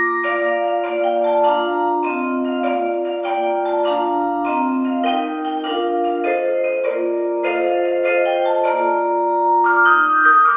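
Music: a melody of short pitched notes, several a second, over a slower-moving lower part, at a steady level.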